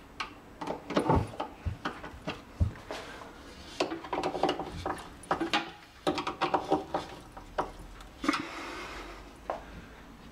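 Screwdriver tightening a screw on a kitchen cabinet door hinge, with irregular clicks, short scrapes and light knocks of metal on the hinge and the wooden door.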